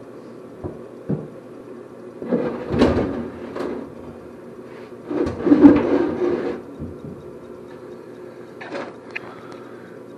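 Wooden trim strips and a metal speed square being handled on a wooden cabinet frame: a couple of light knocks, then two longer stretches of clattering and rubbing a few seconds apart, the second the loudest, and a few small taps near the end.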